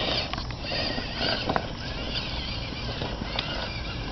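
Tamiya Land Cruiser RC crawler climbing over rocks, its electric motor and gears whining unevenly as the throttle changes, with two sharp clicks of the tyres or chassis knocking on stone.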